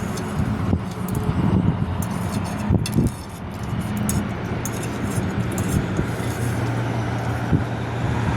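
A steady low mechanical hum, with scattered small clicks and clinks over it.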